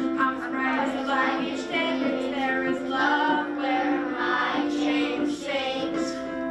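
Children's choir singing in unison, with a steady instrumental accompaniment underneath.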